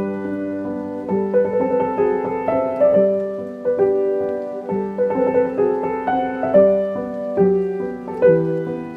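Slow classical piano music, single notes and chords sounding in a steady flow, with notes held and ringing over one another.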